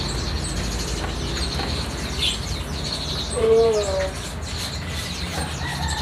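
Caged songbirds chirping with short high calls over a steady low background rumble. A brief wavering lower sound comes a little past halfway.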